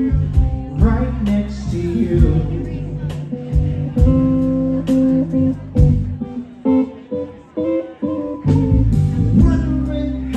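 Live blues band playing: electric guitar over electric bass and drums, with repeated drum and cymbal hits.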